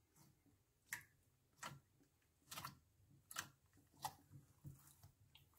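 Glitter slime squeezed and kneaded by hand against a glass baking dish, giving faint, irregular clicks and pops about once a second.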